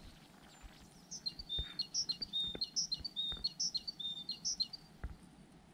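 A songbird singing the same short high phrase about five times in quick succession, starting about a second in. Faint soft footsteps thud underneath, roughly one a second.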